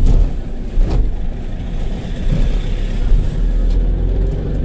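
Low engine and road rumble heard from inside a moving vehicle's cab, with two knocks about a second apart as the wheels cross bars laid across the road.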